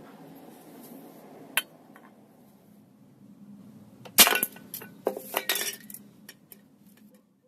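A sharp click, then a loud hit about four seconds in, followed by a run of metallic clinks and rattles lasting about two seconds. This fits a high-powered airsoft BB striking an aerosol spray can and the can clattering about.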